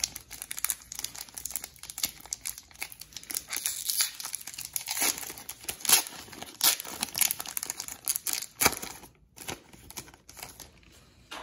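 Foil wrapper of a Pokémon Celebrations booster pack crinkling and being torn open, with rapid crackles that thin out near the end.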